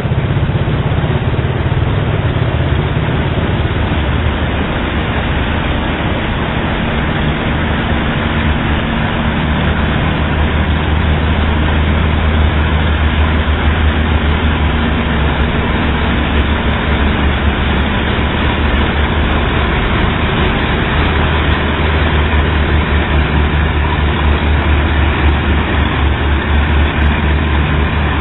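Motor of a bamboo river boat running steadily, a loud low drone with a fast pulsing throb.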